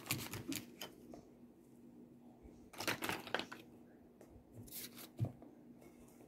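Paintbrush scrubbing and dabbing acrylic paint onto fabric: a few short scratchy strokes, the longest run about three seconds in, and a soft knock about five seconds in.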